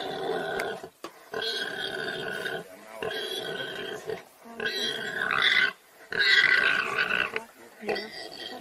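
Warthog squealing in distress in a run of drawn-out cries with short breaks between them, as it is caught by the throat by a leopard.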